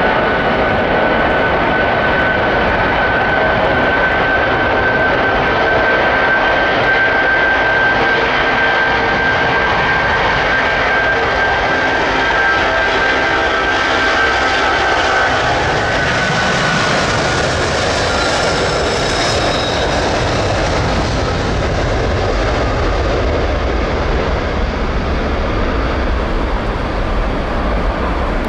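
British Airways Boeing 747-400's four Rolls-Royce RB211 jet engines running loud as the airliner moves along the runway. A steady high whine rides over the engine noise for the first half, then fades about sixteen seconds in as a deeper rumble builds.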